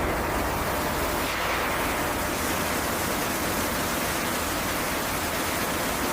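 A steady, loud rushing hiss.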